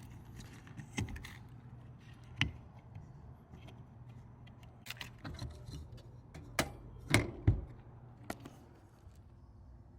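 Scattered sharp clicks and knocks, about a dozen, the loudest a cluster about seven seconds in, over a low steady hum.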